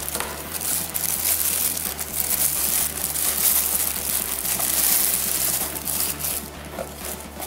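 Clear plastic bag crinkling and rustling as a spinning reel is pulled out of it by hand.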